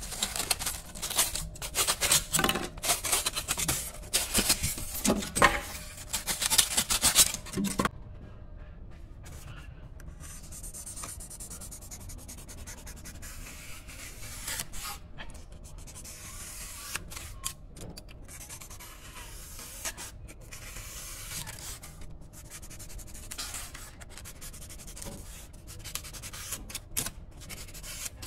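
Styrofoam being cut and rubbed. For about the first eight seconds there is loud, irregular scraping and rubbing. After an abrupt change, a snap-off utility knife trims the edges of the cut-out foam with a quieter, steady scratching.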